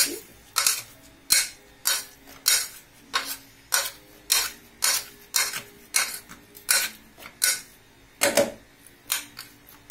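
Metal potato masher knocking and scraping against the bottom of a pressure cooker as cooked rice and chicken are mashed, a sharp clink about every two-thirds of a second.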